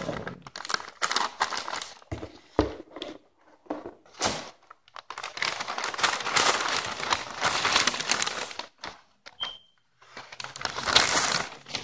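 Sheets of paper packing being pulled out of a cardboard box and crumpled, in irregular rustling bursts with longer stretches of steady crinkling in the middle and near the end.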